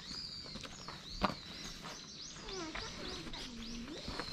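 Wild birds singing: high, short arched chirps repeated throughout, with a quick run of rapid notes in the middle. One sharp click about a second in.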